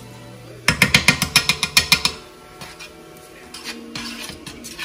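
Background music: held synth-like tones, with a fast run of sharp clicking percussion, about eight to ten hits a second, for about a second and a half near the start.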